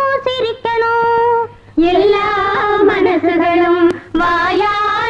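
Female voices singing long held notes in a Tamil film song. The singing breaks off briefly just before two seconds in and resumes at a lower pitch, then returns to the higher note near the end.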